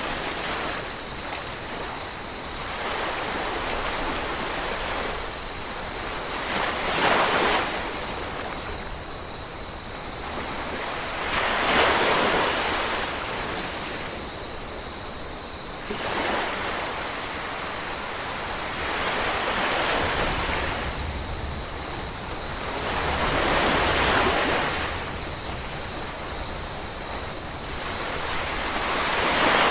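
Ocean waves breaking on a tropical beach: a rush of surf that swells and fades again with each wave, about six waves, several seconds apart.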